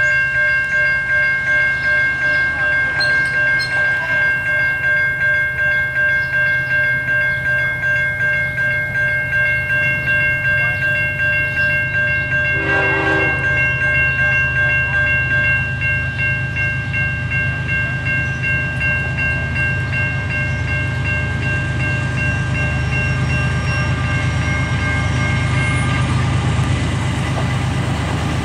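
A grade-crossing warning bell ringing steadily about twice a second over the low rumble of a passing CSX mixed freight train. The bell stops near the end, leaving the train rolling by.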